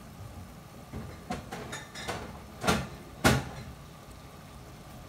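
Refrigerator door and bottles being handled: a few light knocks and clinks, then two sharper knocks about half a second apart.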